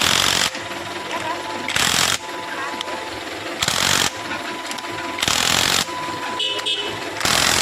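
Power tool run in five short bursts about two seconds apart, tightening bolts as a differential is put back together. A steady thin whine continues between the bursts.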